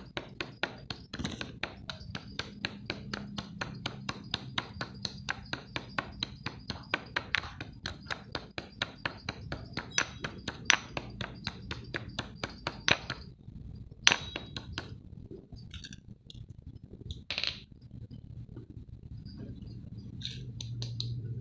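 Rapid, regular sharp knocks of a hard object being struck, about three or four a second, stopping about 13 seconds in, then a few scattered separate knocks and clinks.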